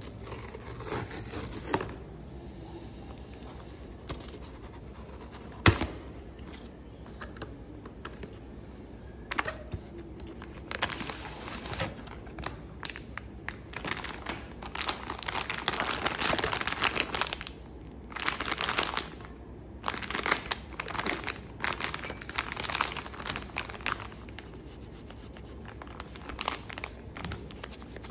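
Hands handling a cardboard blind box and a printed foil packaging bag: bouts of crinkling and rustling as the bag is squeezed and turned over, with one sharp click about six seconds in.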